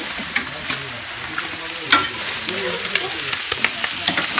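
Pieces of tenrec meat sizzling in an aluminium pot, with the scattered clinks and scrapes of stirring and handling the pot. One sharp metal knock about two seconds in is the loudest sound.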